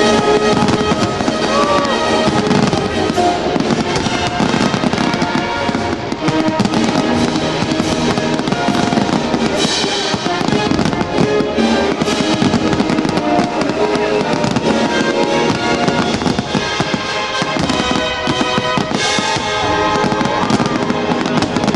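Aerial fireworks bursting and crackling in quick succession over loud music from the show's speakers.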